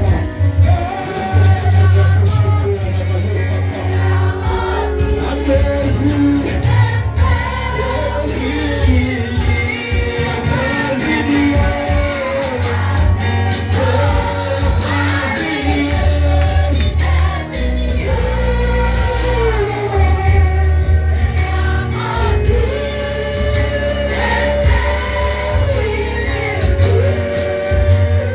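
Gospel worship song: group singing over a band with a heavy bass line.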